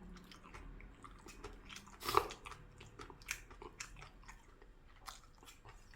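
A person chewing and biting a mouthful of braised kimchi stew close to the microphone: many small wet clicks and smacks, with one louder smack about two seconds in.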